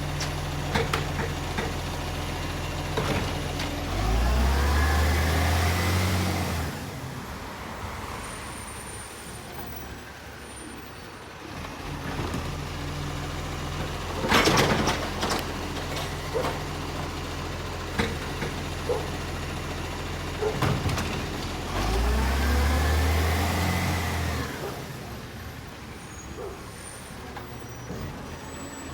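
Garbage truck's diesel engine idling, revving up and back down twice, about four seconds in and again past twenty seconds in. A short loud burst of noise about halfway through, with scattered clanks and knocks.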